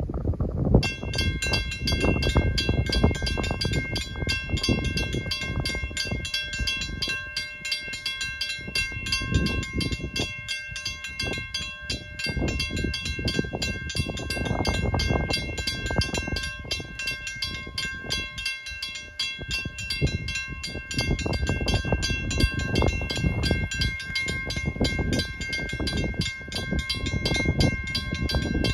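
Railway level crossing bell starting about a second in and ringing rapidly and steadily, the crossing activated for an approaching train, over a low, uneven rumbling noise.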